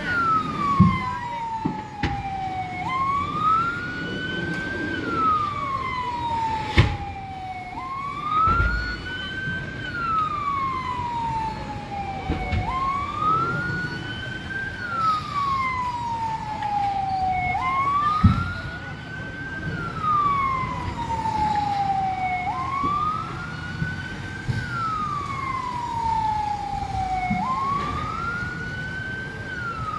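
A siren wailing in slow, even cycles. Each rises for about two seconds, holds briefly, then falls for about three, repeating roughly every five seconds. A few sharp thumps sound over a steady background rumble.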